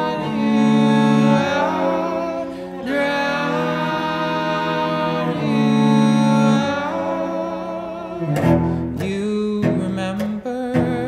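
Carbon-fibre cello bowed in slow, long held notes, moving to shorter notes with sharp attacks from about eight seconds in.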